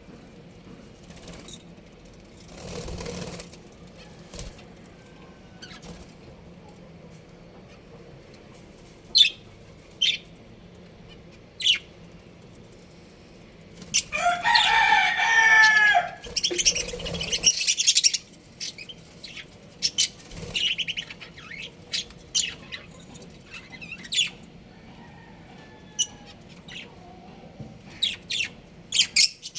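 Birds calling: scattered short, sharp chirps, with one loud drawn-out call lasting about two seconds about halfway through.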